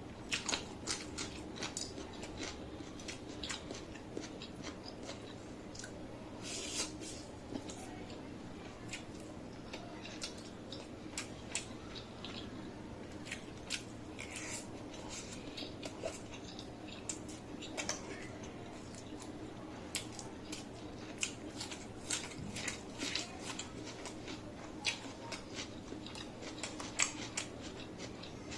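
A person chewing and biting food close to the microphone: many short, crisp crunches and wet mouth clicks at an irregular pace.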